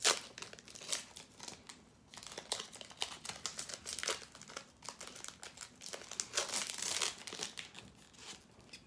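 Foil wrapper of a Pokémon TCG booster pack crinkling and tearing as it is opened by hand, in irregular bursts of crackle, loudest at the start and again about two thirds of the way in.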